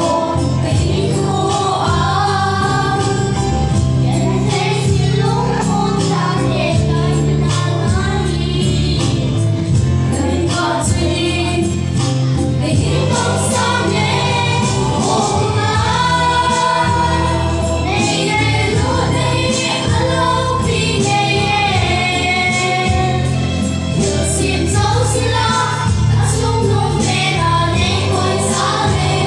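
Three young girls singing a gospel song together into microphones, over instrumental accompaniment with a steady bass line.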